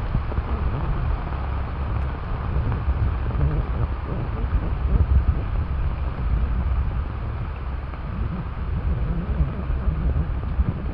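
Wind buffeting the microphone: a steady, gusting low rumble with a fainter hiss above it.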